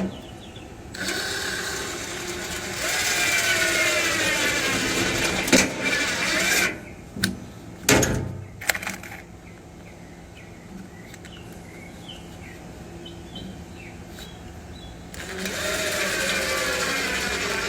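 A power drill running in two spells, its pitch shifting as the trigger is squeezed, with a few sharp clicks in between, as bolts are driven in to fasten a gauge plate.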